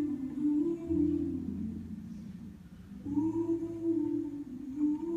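Wordless singing in long held notes, two sustained phrases with a short break between them, over a low steady tone.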